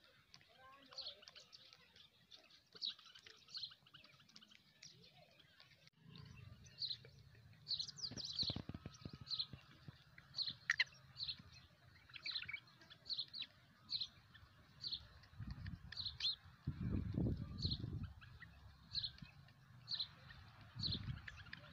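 Short, high chirps repeated about once or twice a second: the calls of a young black francolin (kala teetar) chick. A low rumble comes and goes beneath them from about six seconds in.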